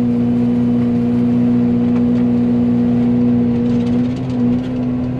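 Yanmar excavator running a Fecon forestry mulcher head: a steady pitched whine of the spinning mulching head and hydraulics over the engine working under load, with faint scattered ticks as small saplings are chewed.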